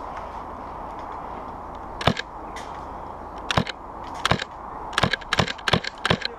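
Airsoft guns firing single shots: one sharp crack about two seconds in, then a string of shots that come faster toward the end, over a steady background hiss.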